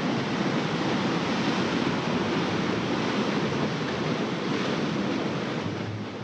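Ocean surf surging and foaming around shoreline rocks, a steady rush of breaking white water that eases a little near the end.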